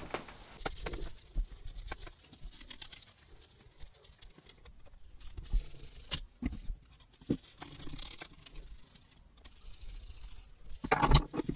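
Scattered light rustling, crinkling and small clicks of a wet wipe being handled and rubbed over a mechanical calculator's greasy mechanism, with a louder rustle near the end.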